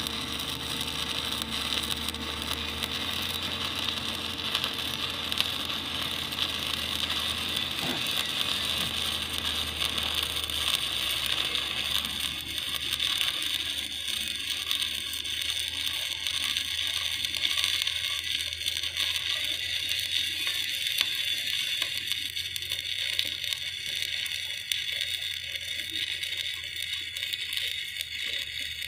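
Stick (shielded metal arc) welding arc crackling steadily as the electrode rod burns along a fillet weld on a steel gusset plate.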